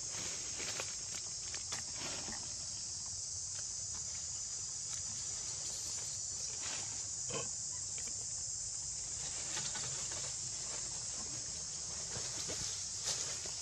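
Steady, high-pitched chorus of crickets or other insects. Scattered rustles and small clicks cross it, and there is one brief squeaky call about seven seconds in.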